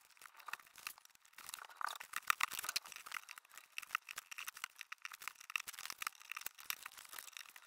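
Plastic photocard sleeve pages rustling and clicking against metal binder rings as a stack of pages is lifted off the rings and fed onto another ring binder: many small irregular clicks and crinkles.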